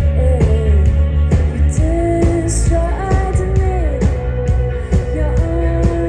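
Live indie rock band playing: electric guitars and a drum kit with a woman singing the melody. The heavy bass drops away about two seconds in, while the drums and singing carry on.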